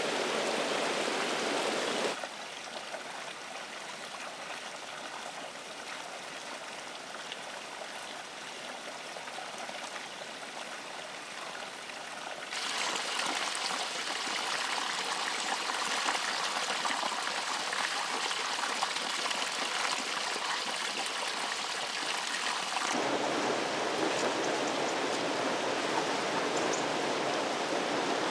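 Thermal spring water running and splashing, steady throughout. It changes abruptly in level and tone about two, twelve and twenty-three seconds in, switching between different falls and flows of water.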